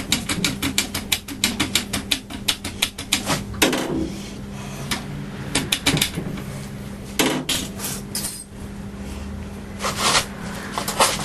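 Ratchet spanner clicking rapidly, about six clicks a second, for the first three seconds or so, then scattered metallic clinks and knocks of tools on metal, over a steady low hum.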